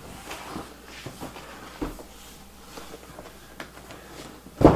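Cardboard box holding a cordless finish nailer being handled and turned on a table: light scuffs and taps, a short knock about two seconds in, and a loud thump near the end as the box is stood on end.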